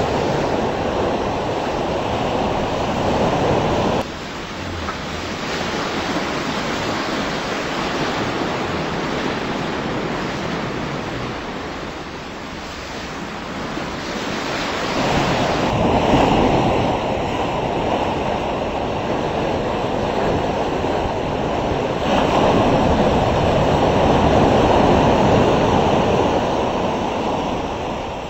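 Ocean surf washing and breaking in a continuous rushing noise, with sudden jumps in loudness and tone about four seconds in and again about sixteen and twenty-two seconds in.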